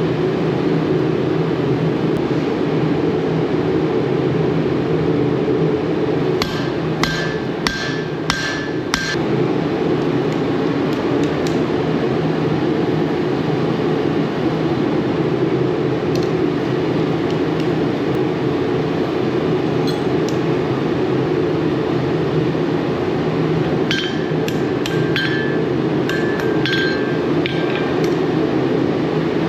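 Blacksmith's hammer striking metal while forge tongs are being repaired: a quick run of about six ringing blows some six seconds in, and another run of about seven blows near the end. A steady low roar runs underneath throughout.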